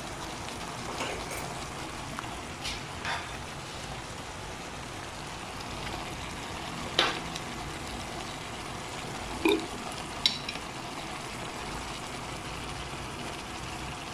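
Sausages and sliced bell peppers sizzling steadily in a non-stick frying pan, with a few short clicks and knocks; the sharpest come about halfway through.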